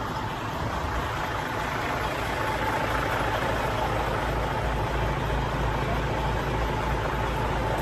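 Cargo truck engine idling with a steady low rumble, a little louder from about three seconds in.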